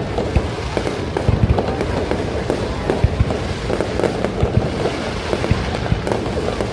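Fireworks display: a rapid, irregular string of bangs and booms, several a second, over a continuous low rumble.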